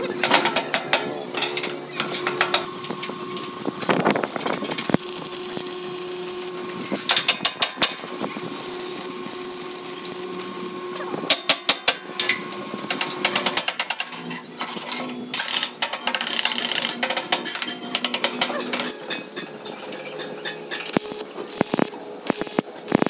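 Hand hammer striking steel, knocking a pipe into line through an excavator bucket's pin bosses, in repeated clusters of quick metallic blows. A steady hum runs underneath.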